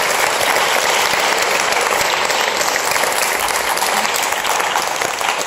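Audience applauding, a dense, steady clapping from many hands.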